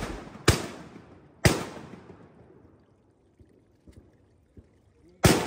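Shotgun shots fired at ducks: three sharp reports, about half a second in, a second later, and again near the end, each echoing and fading over about a second. The echo of an earlier shot is still dying away at the start.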